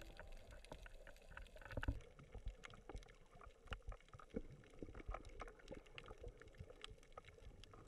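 Faint underwater reef ambience recorded underwater: an irregular crackle of short, sharp clicks and pops, a few a second, over a low hiss.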